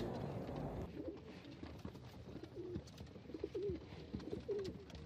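Kasid racing pigeons (domestic pigeons) cooing softly: a string of short, low warbling coos, starting about a second and a half in.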